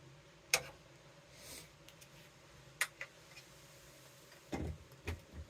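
A few faint, sharp clicks and soft knocks of a powered USB-C hub and its cable being handled while a plug is pushed into a port.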